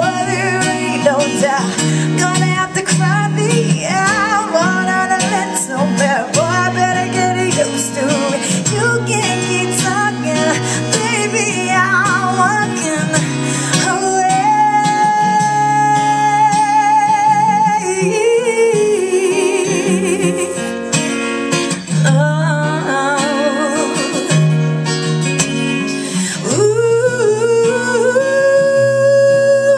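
A woman singing live with acoustic guitar accompaniment: wordless vocal runs that slide up and down, then long held notes with vibrato, one about halfway through and another near the end, over steady guitar chords.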